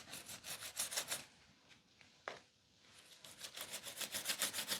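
Quick, rapid rubbing strokes of a hand tool worked over a painted wooden furniture surface during paint stripping, in two runs with a pause between, and one sharp click about halfway.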